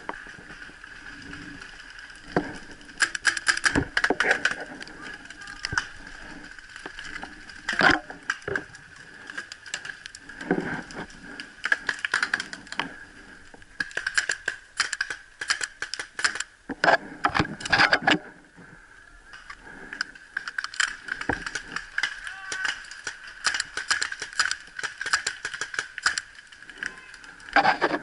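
Paintball markers firing: irregular strings of sharp clicking pops, some in quick rapid-fire bursts.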